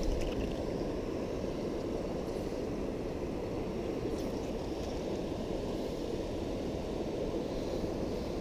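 Steady low rushing of flowing river water, even in level throughout.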